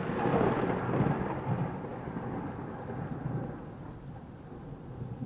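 Deep rolling rumble slowly dying away after a boom, like thunder: an intro sound effect.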